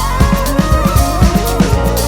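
Background music with a steady drum beat, bass and a melody line.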